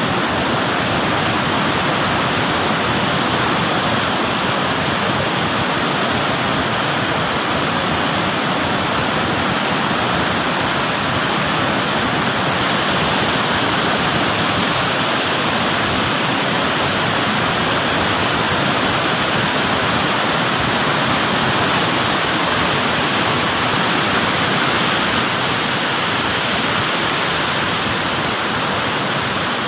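Floodwater pouring through a dam spillway's open radial gates: loud, steady rushing water with no let-up.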